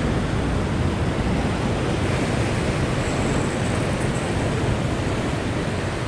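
Surf breaking and washing over a sandstone rock ledge, a steady rushing of sea water.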